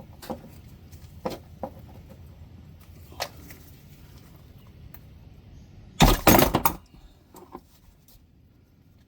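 Metal tool clinks and knocks as a 15 mm wrench works a car's oil drain plug loose: a few light metallic clicks, then a burst of loud clanks about six seconds in.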